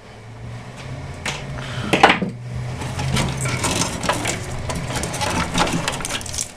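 Pliers and power-supply cables clicking and rattling as a wiring harness is worked off the bundle, with two sharper snaps near the start. A low steady hum runs underneath.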